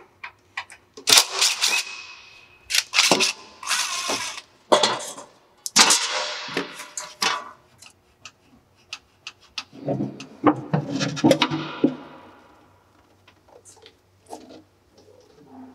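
Cordless impact driver hammering out screws from a lathe's sheet-metal cover panels in several bursts of about a second each. It is mixed with metallic clanks and scrapes as the covers are handled and lifted off, and lower clunks about ten seconds in.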